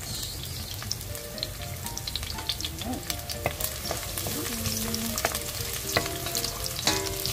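Chopped garlic sizzling and crackling in hot oil in a small nonstick saucepan: the first step of a sauté. From about halfway through, a wooden spatula stirs it around the pan.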